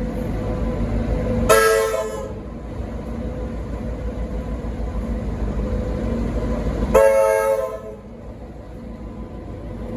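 RVB three-chime air horn on SSR diesel locomotive P17 sounding two short blasts about five and a half seconds apart, over the steady low running of the locomotive's diesel engine.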